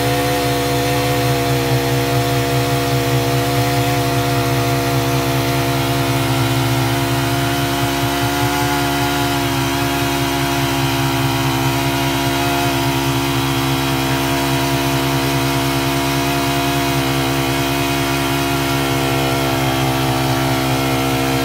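Engine of a borehole drilling rig running steadily at an even pitch.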